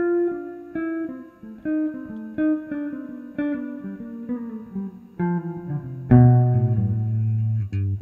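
Eastman hollow-body archtop electric guitar playing a slow melody of single plucked notes, about one a second, stepping downward. About six seconds in, an electric bass comes in with loud, held low notes under the guitar.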